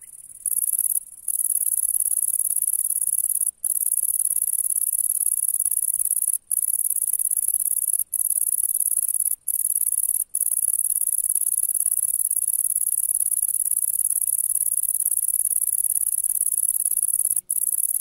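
Bush-cricket (кузнечик) stridulating: a steady, very high-pitched buzzing song, cut by a handful of brief pauses.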